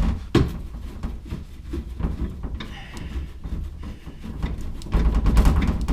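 Hand tools working the last diffuser bolt: a rapid series of small metallic clicks, as a socket wrench ratchets. A louder low rumble comes in near the end.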